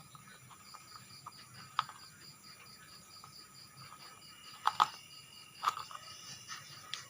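Sharp plastic clicks of small toy parts being handled and fitted together, loudest in a quick cluster about two-thirds of the way in. Under them runs a steady high insect chirping, about four or five chirps a second.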